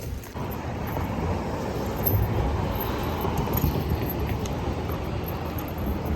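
Car driving: a steady rumble of road and engine noise.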